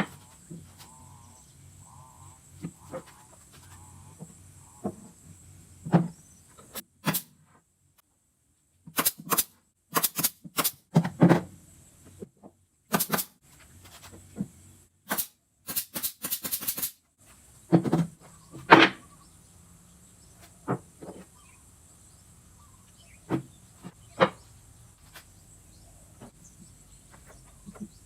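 Irregular knocks and clicks of hand work on a subwoofer speaker cabinet being assembled, coming in clusters. The sound drops out to dead silence three times where the footage is cut.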